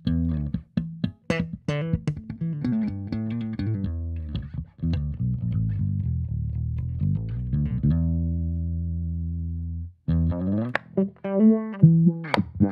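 Electric bass with passive pickups played through a GigFx SubWah pedal in SubWah mode, driven by distortion pedals. Plucked notes and a riff, then a long held note that cuts off near ten seconds in, followed by a quick run of notes.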